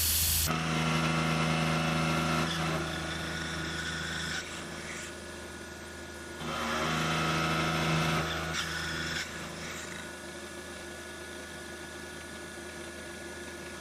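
Milling machine running steadily, louder during two stretches of cutting in the flat bar, one from about half a second to nearly three seconds in and another from about six and a half to eight and a half seconds.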